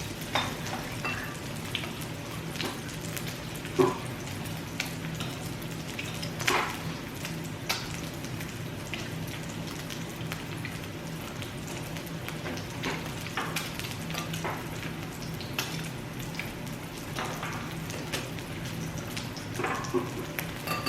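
Pork belly sizzling and crackling on a tabletop grill, with a few sharp clicks over a steady low hum.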